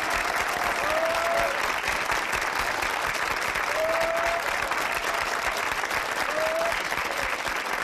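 Audience applauding steadily, with a few short voices calling out over the clapping.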